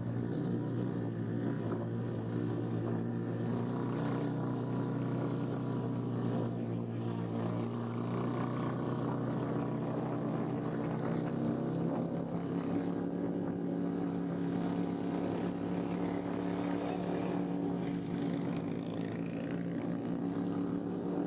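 Motorcycle engine running steadily while riding, its pitch changing about twelve seconds in as the speed or gear changes.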